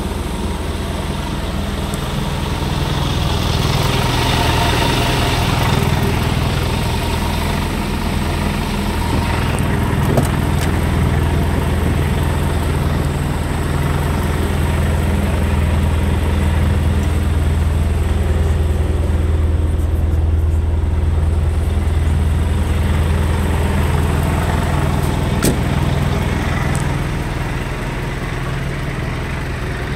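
Scania P280 truck's five-cylinder diesel engine idling steadily, a low even hum that grows somewhat heavier in the middle and eases off near the end.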